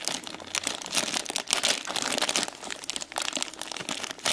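Plastic packaging crinkling and crackling in irregular bursts as a bag of toy figures is handled and torn open.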